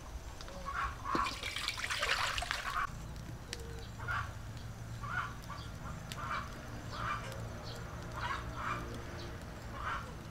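Short calls of a bird or fowl repeating about once a second, with a brief hissing rush about two seconds in.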